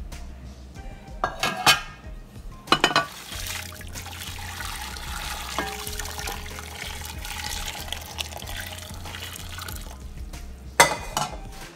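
Hot water poured in a steady stream into a large aluminium pot, splashing over two porcelain dishes set in its bottom as a steaming base. A few light clinks come in the first three seconds, and a sharp knock comes near the end.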